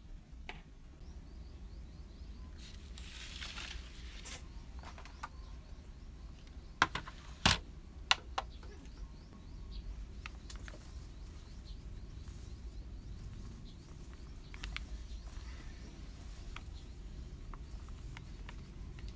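Kitchen handling sounds over a low hum: a few sharp knocks about a third of the way in, then soft plastic-bag rustling as rice flour is poured from a bag into a stainless steel bowl on a digital scale.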